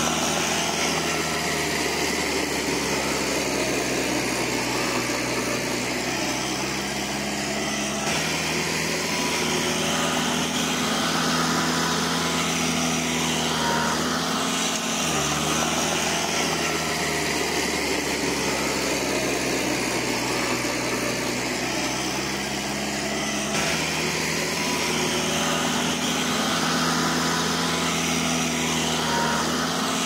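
Diesel engine of an earthmoving machine running steadily, its note shifting every several seconds as it works.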